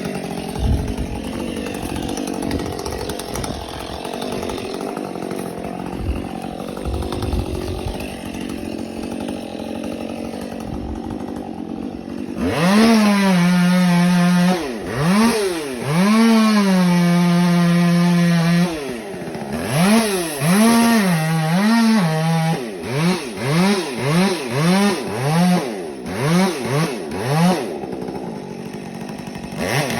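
A chainsaw is revved and held at full throttle in two long runs about halfway through, then blipped in a quick string of short revs near the end. Before that there is a low rumbling with a few low thumps.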